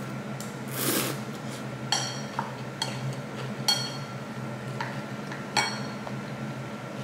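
An eating utensil clinking against a bowl several times as someone eats, each strike ringing briefly.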